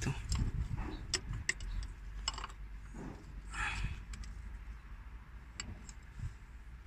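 Scattered light metallic clicks and taps as the piston of a Mercedes-Benz Actros truck's air compressor is rocked and handled by hand, over a low steady hum. The mechanic suspects the piston pin has come loose.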